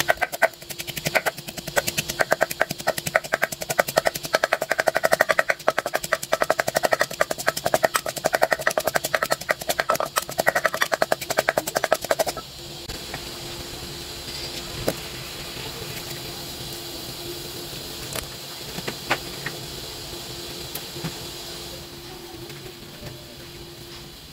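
Wooden pestle pounding garlic in a clay mortar: rapid, regular thuds several a second, stopping about twelve seconds in. After that a steady low hiss with a few light clicks.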